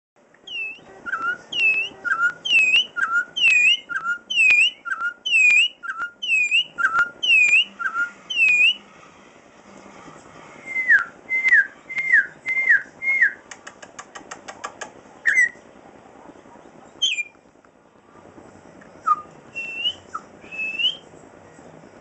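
Venezuelan troupial singing: a clear whistled two-note phrase, high then low, repeated about ten times at a steady pace. Then a run of five downslurred whistles, a quick series of clicks, and a few scattered whistles.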